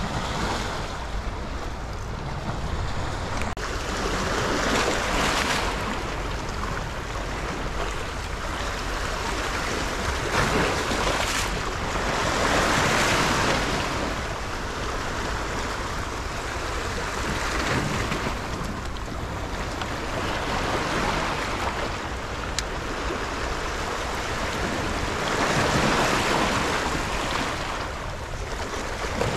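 Small sea waves washing in over shoreline rocks, the surf rising and falling every few seconds, with wind rumbling on the microphone.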